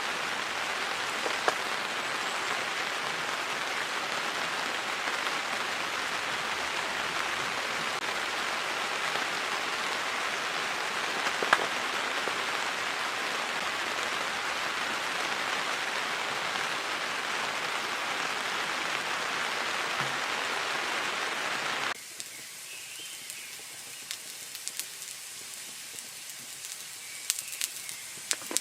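Steady rain falling, with a few sharp drop ticks. About 22 seconds in it cuts off suddenly to a much quieter background with scattered light ticks and pops.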